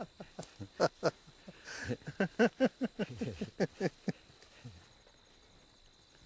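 Men laughing heartily at a joke: a quick run of short 'ha' sounds, each falling in pitch, dying away about four and a half seconds in.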